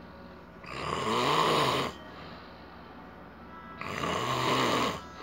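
A man snoring loudly: two long snores, each about a second, roughly three seconds apart, with quiet breathing gaps between. The snoring is a sign of sleep apnea.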